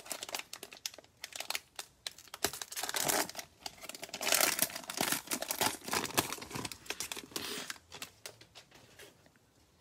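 Cellophane wrapper of a trading-card cello pack crinkling and tearing in the hands, a dense run of small crackles that dies away near the end.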